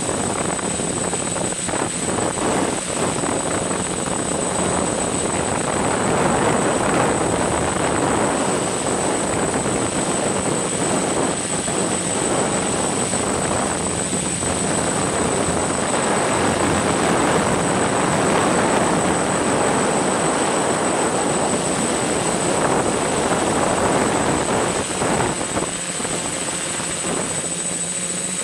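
Camera drone's electric motors and propellers whirring steadily: a constant high whine over a rushing hiss, swelling a little at times.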